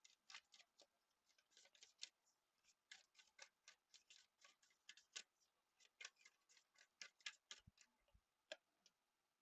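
Faint, irregular light clicks of a tarot deck being shuffled by hand, several a second.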